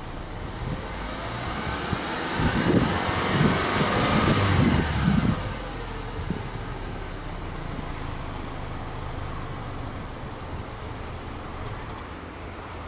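Subaru Legacy Touring Wagon 2.5i's EJ25 2.5-litre flat-four, heard from behind at the exhaust, revved in neutral. Its pitch rises and falls over about three seconds, then it settles back to a steady idle.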